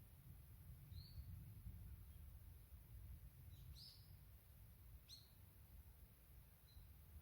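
Faint, sparse bird chirps from the forest: a few short high calls, one about a second in, a quick pair near four seconds and another at five seconds, over a low, steady rumble of wind.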